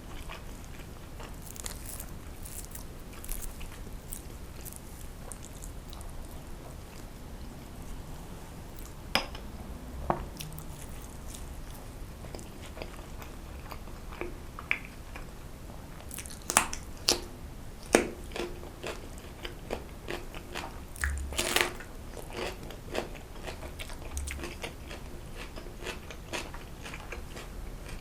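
Close-miked eating: chewing and biting with wet mouth clicks and smacks. Scattered sharp clicks run throughout, and they come thickest and loudest a little past the middle.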